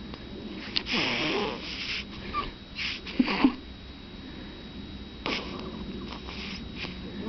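Baby snoring: irregular, noisy breaths with a few short squeaky sounds, loudest about three seconds in.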